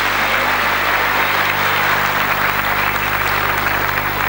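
Large audience applauding: a steady, dense wash of many hands clapping.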